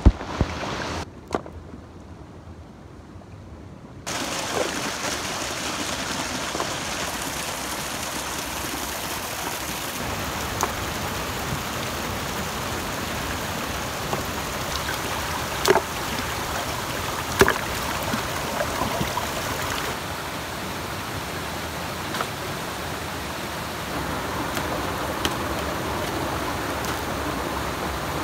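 Shallow rocky stream running steadily over stones, fainter for the first few seconds. A few brief splashes come from hands working in the water.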